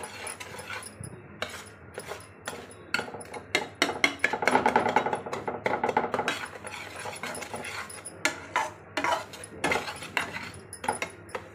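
A spoon scraping and knocking against a steel kadhai while a crumbly halwa mixture is stirred and roasted. The scrapes come in quick uneven strokes and are busiest and loudest in the middle.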